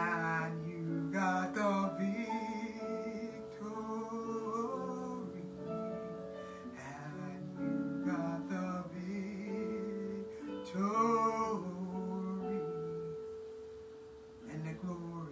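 A woman singing a gospel worship song into a microphone, in short sung phrases with glides and held notes, over a steady instrumental accompaniment.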